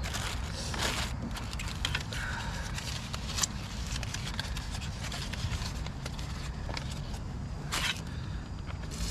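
Foil butter wrapper crinkling and rustling as it is peeled open by hand, with scattered clicks and scrapes of gear being handled, over a steady low rumble.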